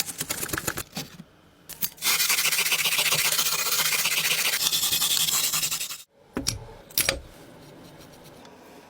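Abrasive rubbing on a surface: about a second of fast rasping strokes, then a loud, steady, hissing abrasion for about four seconds that cuts off suddenly, followed by two brief scrapes.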